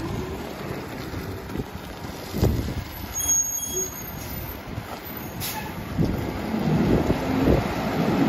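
Freightliner garbage truck's diesel engine running as the truck creeps forward, with a clunk about two and a half seconds in and a short hiss of air about five and a half seconds in. The engine grows louder near the end.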